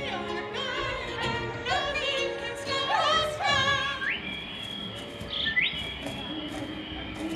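The dark ride's show soundtrack: music with a high, operatic singing voice warbling in wide vibrato, then holding one long high note, swooping up into it about four seconds in and again near the end.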